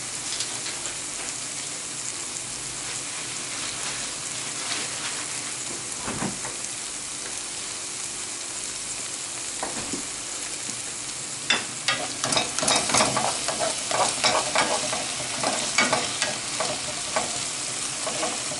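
Sliced sucuk frying in butter in a pan with a steady sizzle. From about eleven seconds in, a utensil stirring and scraping in the pan adds quick irregular clatter.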